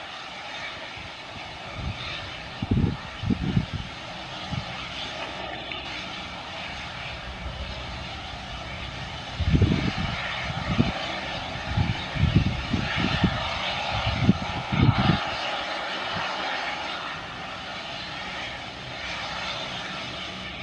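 AgustaWestland AW139 helicopter running on the ground with its rotor turning, its twin turboshaft engines giving a steady rushing whine. Irregular low gusts of wind buffet the microphone a couple of seconds in and again for several seconds around the middle.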